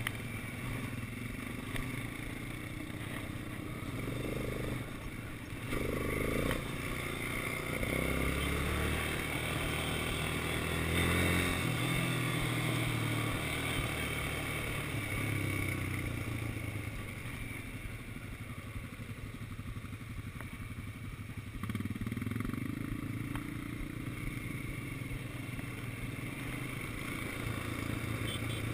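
Quad bike engine running under way on a gravel track, the engine note rising and falling as the throttle is opened and eased, swelling about six to twelve seconds in and again after about twenty-two seconds.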